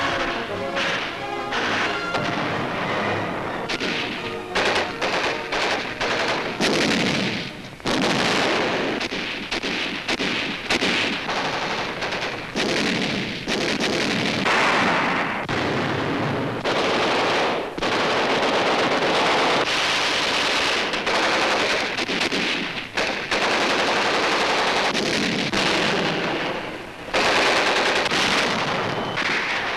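Rapid machine-gun and rifle fire in long, dense bursts with brief lulls: the sound of a battle on an old newsreel soundtrack. Music fades out in the first couple of seconds.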